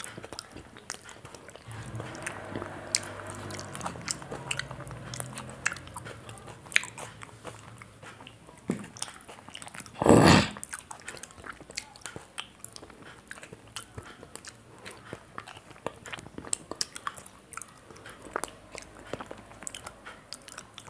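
Close mouth sounds of eating: chewing with many small wet clicks and smacks as a finger is licked clean. One short, loud burst of noise comes about halfway through.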